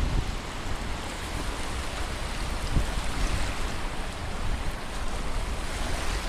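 Surf washing on a sandy beach, with wind buffeting the microphone in a steady low rumble.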